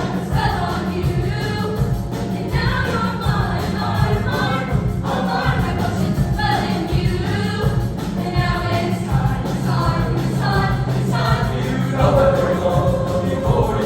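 Junior high girls' choir singing, with held sung notes over a steady low accompaniment.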